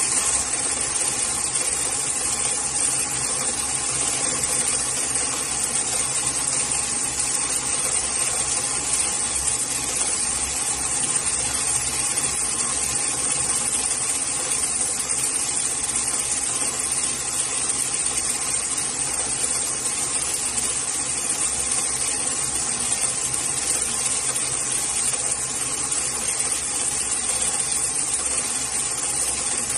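Automatic industrial sewing machine running steadily as it stitches heavy polyester sling webbing: an even mechanical hum with a constant hiss over it.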